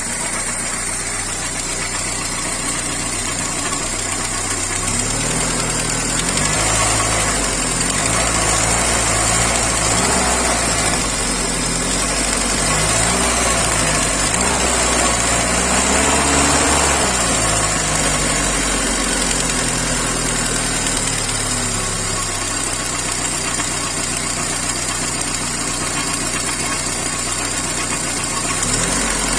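Volkswagen Passat B3's 1.8-litre RP four-cylinder petrol engine idling, then revved up and down several times from about five seconds in before settling back to idle, with a knock from the cylinder head whose cause the owner doesn't know.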